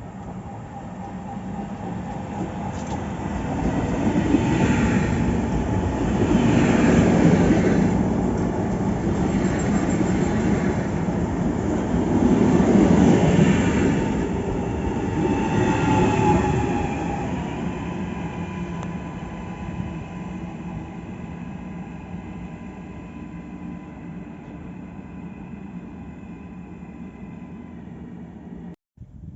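A train passing on the line: a rumble of wheels on track builds over the first few seconds, swells several times as the train goes by, then slowly dies away with a faint high whine lingering. It cuts off abruptly just before the end.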